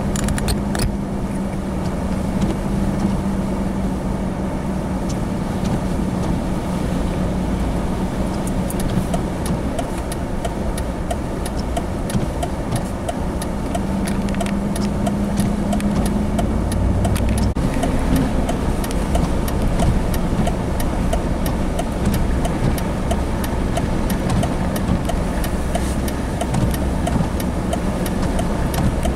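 A vehicle's steady low rumble mixed with wind noise in a blizzard. A hum comes and goes, and many small sharp ticks sound through the second half.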